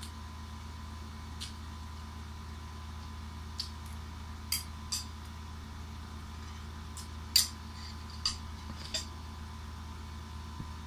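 Spoon and plates clinking: about eight short, sharp clinks, the loudest about seven seconds in, over the steady hum of an electric fan.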